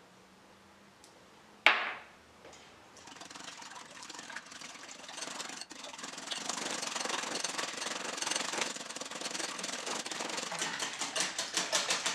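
Wire whisk beating eggs and milk in a glass bowl: rapid scraping strokes that start about three seconds in and grow louder near the end. A single sharp clink comes about a second and a half in.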